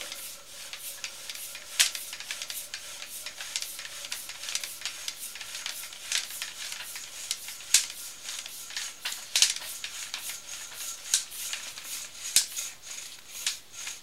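Sewer inspection camera and its push cable being fed quickly down the line: a dense, irregular clatter of clicks and scrapes.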